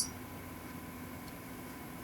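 Quiet room tone: a steady faint hiss with a low hum.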